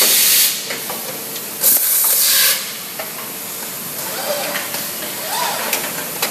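Automatic bag-packaging machine running, its pneumatic cylinders letting out two loud hisses of compressed air, one right at the start and another about two seconds in, over steady machine noise with small clicks.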